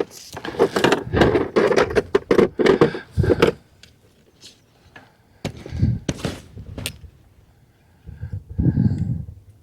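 Irregular knocks and thumps on a kayak as a freshly landed bass is handled and unhooked: a dense cluster of knocks in the first few seconds, then a few more near the end.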